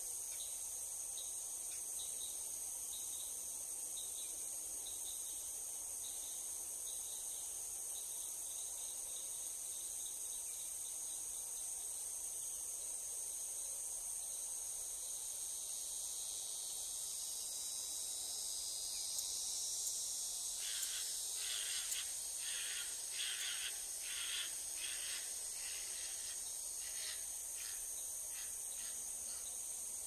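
Steady high-pitched chorus of crickets and other insects. About two-thirds of the way in, a bird joins with a run of short calls, about two a second, growing weaker toward the end.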